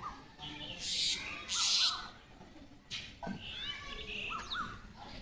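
Birds calling in a village with short quick chirps and sliding notes scattered throughout. The loudest moments are two louder hissing bursts at about one and two seconds in.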